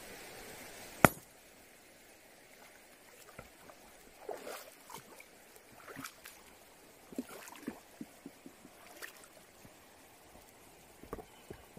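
A sledgehammer strikes a rock in a stream once, a single sharp crack about a second in, to stun fish sheltering beneath it. Light splashing and small knocks follow from wading through the shallow water and taking hold of the wet rock.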